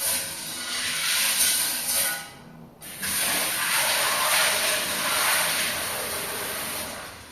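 Kitchen tap running hard into the sink as peas are rinsed. The flow drops away about two seconds in, runs strongly again a moment later and eases near the end.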